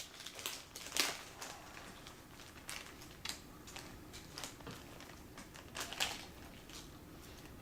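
Scattered light clicks and crinkling from small laptop display parts and adhesive tape being handled, with two sharper clicks, about a second in and about six seconds in.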